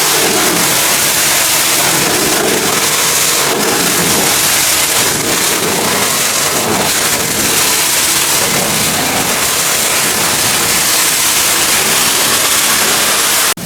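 High-pressure water spray from a pressure washer hitting a dirty tractor, a dense, steady hiss that breaks off abruptly near the end.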